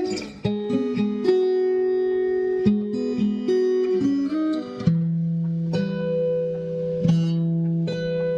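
Instrumental music: a plucked guitar melody with a sustained lower part, notes changing every half second or so.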